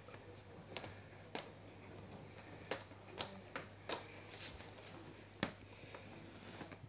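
Faint, scattered light clicks and knocks from a perforated plastic laundry basket being handled with a cat inside, about eight in irregular succession, over a low steady hum.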